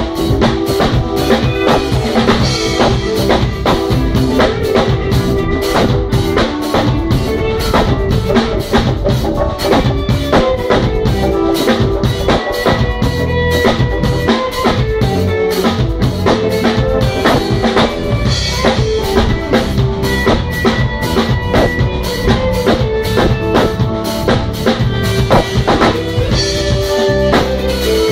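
Live band jamming: a drum kit keeping a steady beat under keyboards, the keyboardist playing the bass line with one hand and chords with the other, with guitar and percussion alongside. Loud and steady throughout.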